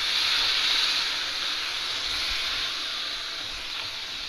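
Cold milk poured into a hot kadai of grated carrots cooked in sugar, hissing and sizzling as it hits the hot pan. The hiss swells in the first second, then slowly dies down.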